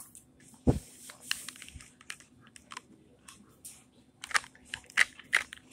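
A dog chewing and crunching on a torn white object in its mouth: a run of short, sharp crackling clicks, loudest near the end. A single low thump about two-thirds of a second in.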